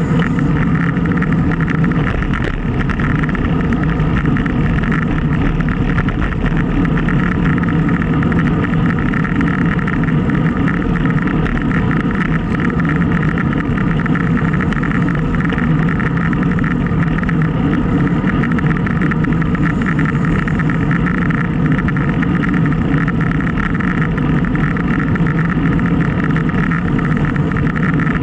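Steady wind rush buffeting a bike-mounted action camera's microphone while cycling at speed, mixed with tyre and road noise.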